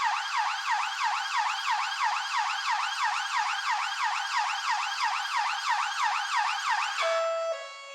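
Police siren in fast yelp mode: a quick rising-and-falling wail repeating about three times a second. About seven seconds in it cuts off suddenly and music with held notes begins.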